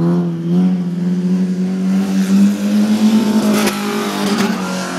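Bilcross race car's engine running loud at a fairly steady pitch on the track, with two short sharp cracks about three and a half and four and a half seconds in.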